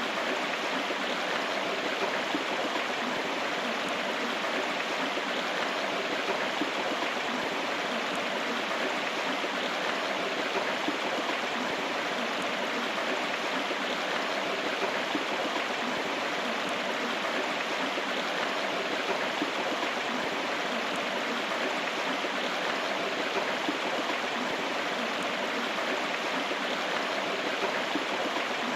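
River or stream water flowing and rushing steadily, an even unbroken wash of moving water.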